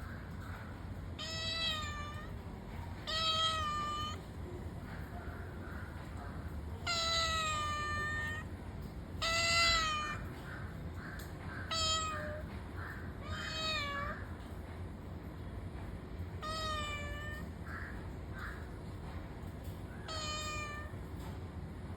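A domestic cat meowing again and again: about eight meows a few seconds apart, each a bent, wavering call. A couple of them, around the middle, are held longer and louder. A steady low hum runs underneath.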